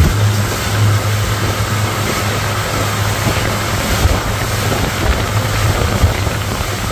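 Suzuki 150 hp outboard motor running steadily at speed while towing, a constant low hum under the rush of churning wake water and wind buffeting the microphone.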